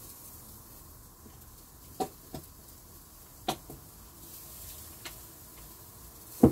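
Scattered light knocks and clinks as a squeeze bottle and dishes are handled on the table, over a faint steady hiss. The loudest knock comes near the end.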